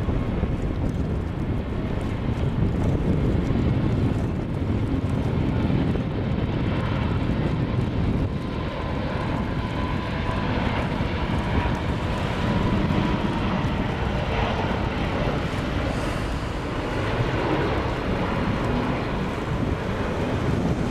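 Airbus A380-842's four Rolls-Royce Trent 970 turbofans at takeoff thrust through the takeoff roll and liftoff: a steady, heavy jet rumble, with a faint whine through the middle.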